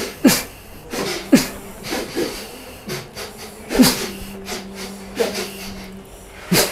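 A person's short, forceful vocal bursts, sneeze- or snort-like, about six in a row at roughly one-second intervals, each dropping in pitch.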